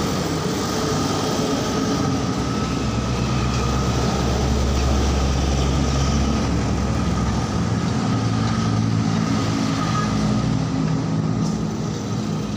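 Motor vehicle engine running, a deep rumble that swells in the middle and eases off after, with a thin steady tone above it.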